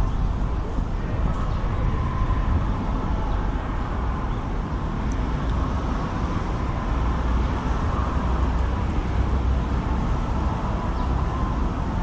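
Steady low rumble of city traffic, even throughout with no sudden events.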